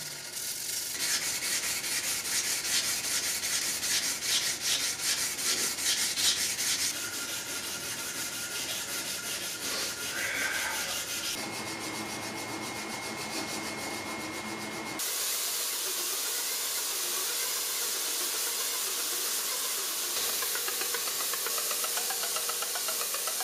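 Hand-sanding a steel knife blade with an abrasive stick in rapid back-and-forth strokes. About two-thirds of the way through this gives way to a belt grinder running steadily with the blade held against the belt.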